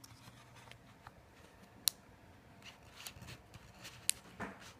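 Faint small clicks and light scraping of fingers working a laptop's battery cable connector loose, with two sharper clicks about two seconds in and about four seconds in.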